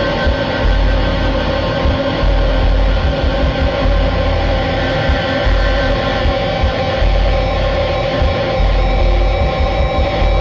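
Background music: a dense, steady track with several held tones sounding together throughout.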